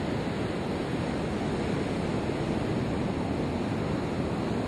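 Ocean surf breaking on a beach: a steady, even rush of waves, with some wind on the microphone.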